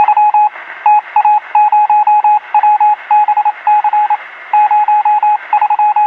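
Morse code beeping: a single high-pitched tone keyed on and off in quick short and longer pulses, in groups with brief pauses, over a faint steady hum.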